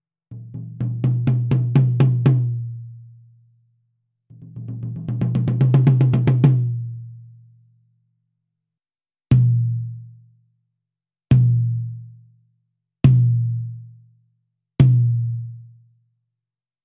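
Close-miked 1970s Premier 13-inch birch tom with coated Emperor heads, struck with drumsticks. Two quick runs of strokes build in loudness, then four single hits come about two seconds apart, each ringing with a low tone and dying away within about a second.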